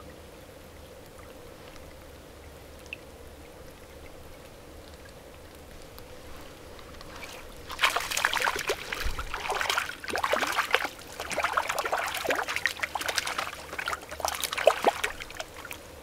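Quiet background, then from about eight seconds in, loud irregular splashing in bursts: a hooked fish thrashing at the water's surface as it is reeled in and landed.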